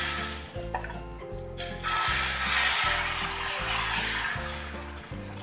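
Pearl millet dosa batter sizzling on a hot tawa as it is poured and spread in circles with a ladle, the hiss loudest as the batter lands and again about two seconds in.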